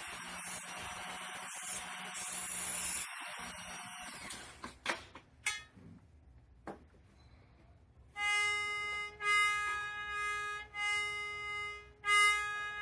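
A small power tool whirs for about four seconds, then stops. After a few clicks, an accordion bass reed sounds in short repeated notes of one steady pitch, starting about eight seconds in. The reed is being tested after its pitch was raised to bring it in tune.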